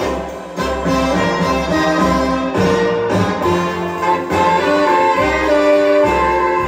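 Orchestral music with sustained notes, played in mono through a 1957 Realistic vacuum-tube amplifier and an Electro-Voice SP8B coaxial 8-inch driver in a Gough speaker enclosure.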